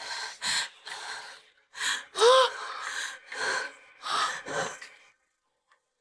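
A woman gasping and sobbing in distress: a run of sharp, ragged breaths with a short whimpering cry a little over two seconds in, stopping about five seconds in.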